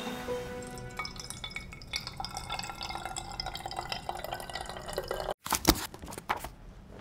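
Liquid poured from a pitcher into a glass bottle, a splashing trickle lasting a few seconds, followed by a single sharp knock about five and a half seconds in.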